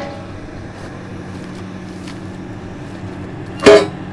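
Rusted steel tank parts being handled among scrap, with a single sharp metallic clank about three and a half seconds in, over a steady low hum.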